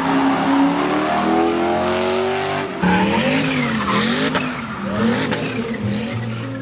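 A car doing a burnout: the engine revs high while the tyres squeal. From about three seconds in, the squeal's pitch wavers up and down.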